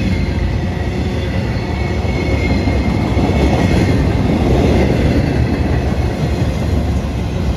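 Train cars rolling past at close range: a steady rumble of wheels on rail with rhythmic clatter.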